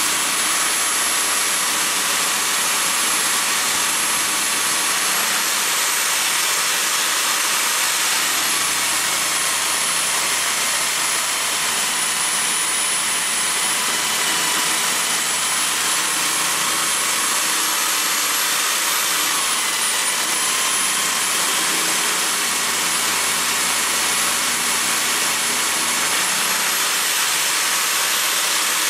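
Electric drill motor spinning an end mill in an ER20 collet milling fixture, cutting a slot in aluminium bar: a steady high-pitched whine with the hiss of the cut. The pitch sags slightly about two-thirds of the way through and picks up again near the end.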